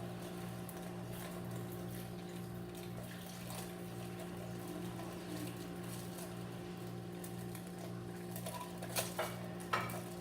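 Steady low hum of a running motor or appliance, with a slow pulsing in its lowest note and a few sharp clicks near the end.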